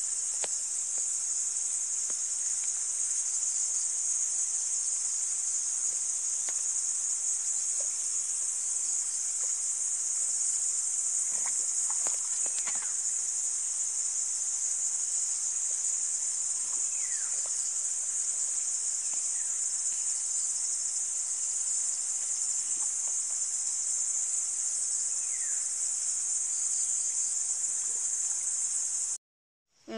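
A steady, high-pitched chorus of insects, an unbroken shrill buzz that holds at one level and cuts off suddenly near the end.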